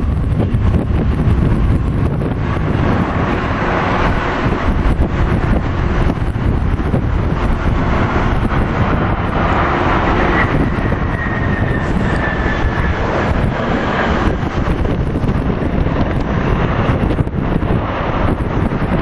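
Twin jet engines of a Boeing 757-300 airliner passing on its landing approach: a steady jet rumble that swells through the middle, with a faint high whine falling in pitch about ten seconds in. Heavy wind buffets the microphone throughout.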